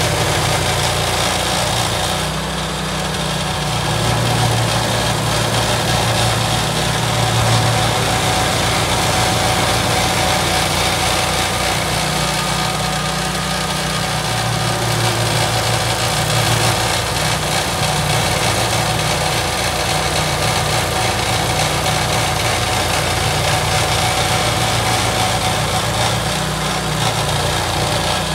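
Rayco RG1635 tracked stump grinder running steadily, its cutter wheel grinding out a silver birch stump. The engine's low hum swells and fades every few seconds as the wheel works across the wood.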